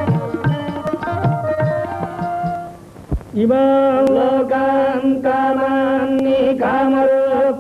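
Indian devotional-style music: a melody over drum strokes, which breaks off about three seconds in, followed by a long held note at a steady pitch.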